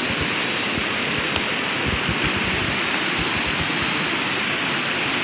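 Steady rushing of river water under the bridge, with low fluttering buffets like wind on the microphone and a thin high-pitched whine held through it.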